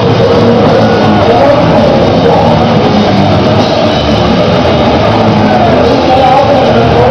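Black metal band playing live in a hall at very high volume: a dense, unbroken wall of drums and guitars.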